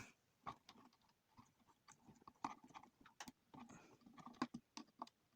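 Faint, irregular small clicks and ticks of a tool undoing the nut that holds an IC on an amplifier circuit board.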